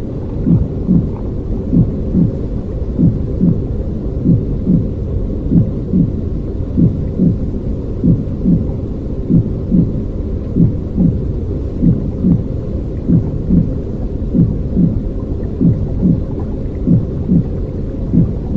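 A baby's heartbeat: a regular, unbroken rhythm of low thudding beats over a steady low rumbling noise.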